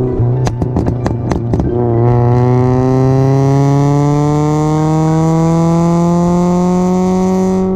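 Straight-piped Kia Rio's engine and exhaust: a steady engine note with a rapid string of sharp pops and crackles, then, about two seconds in, one long, smooth rise in pitch as the car accelerates.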